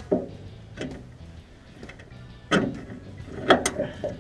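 A series of sharp metal clanks and knocks, about half a dozen, the loudest in the second half, some with a brief ringing tail: hand tools and parts of a car's torsion-bar front suspension being worked loose by hand.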